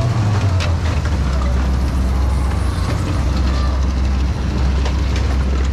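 A steady low mechanical hum like a running engine, dropping slightly in pitch about a second in and then holding steady, with voices faintly in the background.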